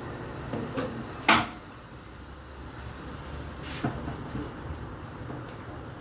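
A single loud, sharp knock about a second in and a smaller click a couple of seconds later, over a low steady hum.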